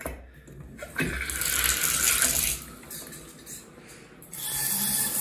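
Bathtub faucet being worked with a click, then water rushing from the tub spout about a second in. Near the end the flow switches to the overhead shower head, which sprays with a steady hiss.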